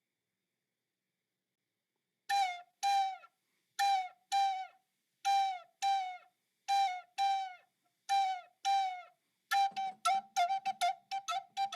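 A flute sounding short notes on one pitch, each falling slightly at its end. The notes come in pairs, about five pairs, then become a quick run of repeated staccato notes near the end.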